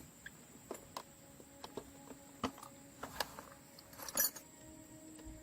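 A few scattered light clicks and taps, the loudest a short clatter about four seconds in.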